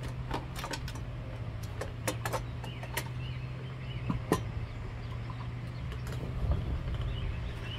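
Sharp plastic clicks and knocks as the side body panel of an RC Volvo E160E excavator is unclipped and lifted off, over a steady low hum.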